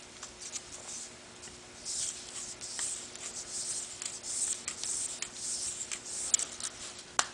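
Close handling noise from hands turning and rubbing a small brass chemical-pump part: scratchy rustles through the middle, then two sharp clicks near the end.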